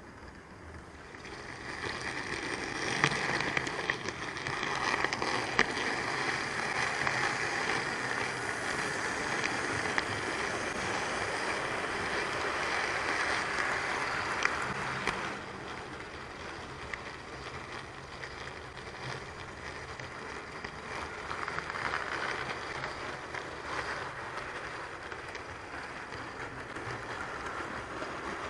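OO gauge model train of Pullman coaches running along the track: a steady rolling rumble of small wheels on the rails with occasional light clicks. It grows louder over the first few seconds and drops off about halfway through.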